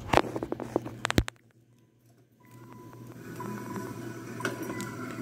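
A burst of clicks and knocks for about the first second, a short near-silent gap, then from about halfway a steady low running noise with faint steady tones: the Hyundai Tucson's 2.7-litre V6 idling just after start-up.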